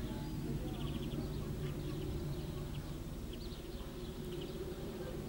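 Outdoor background noise: a steady low drone with scattered faint, short high chirps and ticks.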